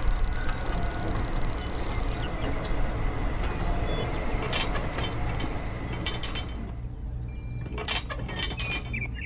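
A toy fuel pump's dispensing sound, a high electronic tone with fast even ticks for about two seconds, then a few sharp plastic clicks as the miniature fuel nozzle is handled. A steady low hum runs underneath.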